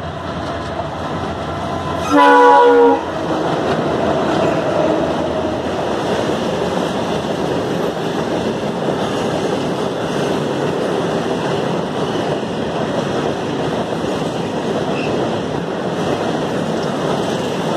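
An Indian Railways diesel locomotive heading a freight train sounds its horn once, a steady chord lasting about a second, some two seconds in. A long rake of covered goods wagons then rolls past close by, with a steady noise of wheels on the rails.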